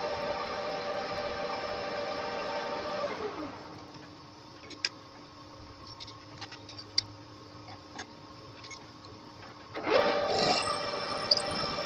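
Manual metal lathe running with a steady whine while a centre drill spots the face of an aluminium blank. About three seconds in the lathe is switched off and winds down, followed by a few light metal clicks as the centre drill is swapped for a twist drill in the tailstock chuck. Near the end the lathe starts up again and spins up.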